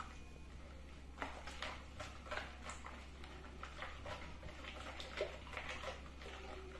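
Wire whisk beating cake batter in a mixing bowl: faint, irregular clicks and scrapes of the whisk against the bowl.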